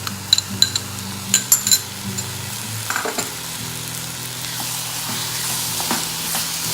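Chopped tomatoes sizzling in hot oil with onion paste in a pan while being stirred, with several sharp clinks of the stirring spoon against the pan in the first two seconds. The sizzle grows stronger in the second half.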